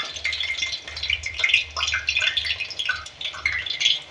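Drops of besan (gram-flour) batter falling through a slotted spoon into hot oil, crackling and sizzling as the boondi fry.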